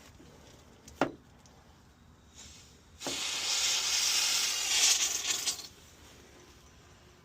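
A sharp knock about a second in, then a burst of pressurised hissing for about two and a half seconds that cuts off: flush being blown through an old copper refrigerant line to clear out the R22 system's oil.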